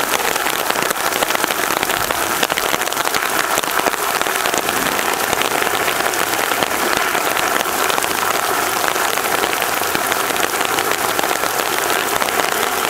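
Heavy rain falling steadily, a dense, even patter of drops onto wet ground and pavement.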